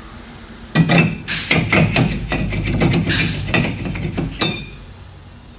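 Metal knocking and clanking as a brake rotor is worked onto an axle hub whose centre hole is too small for it: a rapid run of strikes lasting about three and a half seconds, the last one a ringing clang.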